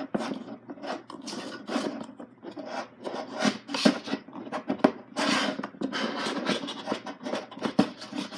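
Irregular rubbing and scraping strokes, about one or two a second, as the wooden coin bank is handled.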